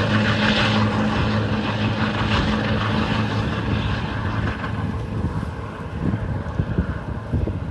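Lifeboat engines droning as the boat speeds away at full power. The steady hum fades from about three seconds in, leaving gusty wind on the microphone near the end.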